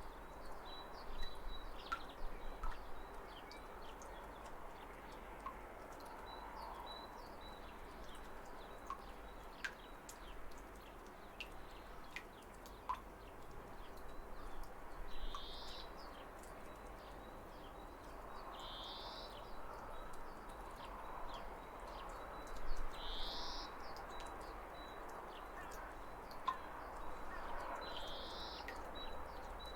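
Steady rush of a waterfall with birds chirping over it. One bird repeats a short call four times, a few seconds apart, in the second half.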